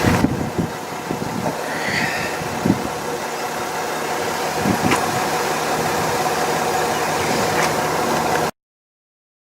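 Vehicle engine running under a steady rushing noise, with a few brief low thumps. The sound cuts off to silence about a second before the end.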